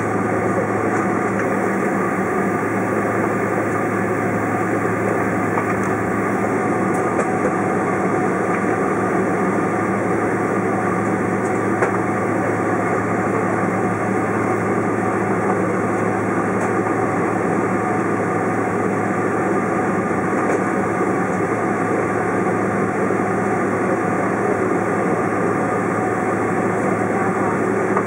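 Cabin noise inside a Boeing 767-400ER taxiing with its turbofan engines running, a steady hum with several held tones over it.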